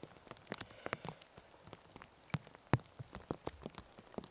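Pouring rain, with irregular drops tapping sharply close by, several each second, over a faint hiss.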